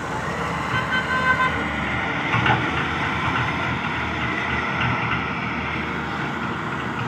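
Heavy diesel engines of an excavator and a wheel loader running steadily under work, with a short high tone about a second in.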